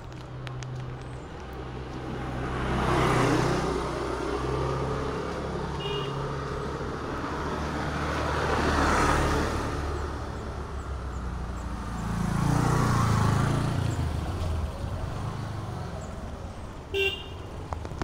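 Road traffic: three vehicles pass close by a few seconds apart, each swelling and fading, over a steady low engine hum. A short vehicle horn beep sounds near the end, with a fainter toot about a third of the way in.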